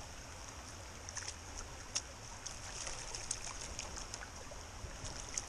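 Shallow creek water trickling and splashing steadily over rocks, with a few faint clicks and ticks scattered through it.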